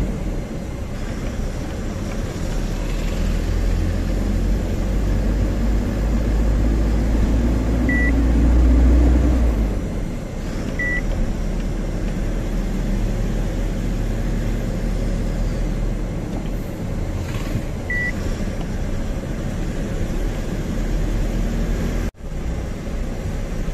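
Tata 1512 truck's diesel engine and road noise heard from inside the cab while driving, a deep rumble that is heavier for the first ten seconds or so and then eases. Three short high beeps come during it, and the sound drops out for a moment near the end.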